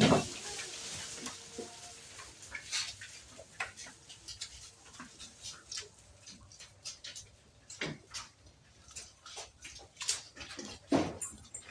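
Goats moving about in their pen, making irregular small clicks and knocks, with two louder thumps about 8 and 11 seconds in.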